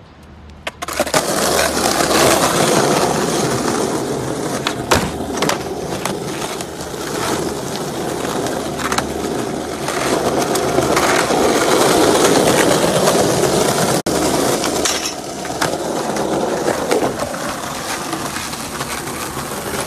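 Skateboard wheels rolling over stone paving tiles, a loud continuous rumble that starts about a second in, with sharp clacks now and then.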